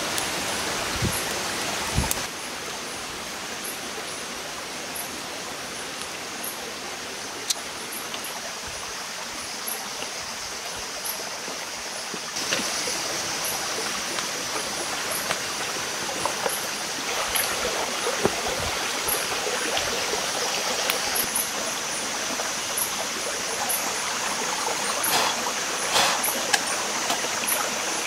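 Night-time forest ambience: a steady, even hiss with faint, regular high-pitched chirps, and a few short rustles and knocks, the clearest near the end.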